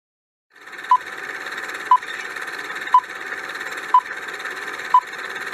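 Quiz countdown timer sound effect: a short beep once a second, five times, over a steady hiss, starting about half a second in after silence.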